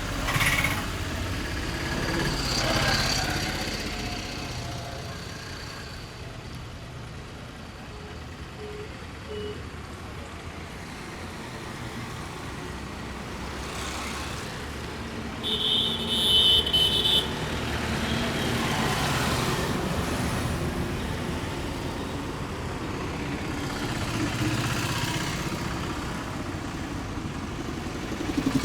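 Road traffic noise: vehicles passing with slow swells in level, and a short high-pitched tone about sixteen seconds in.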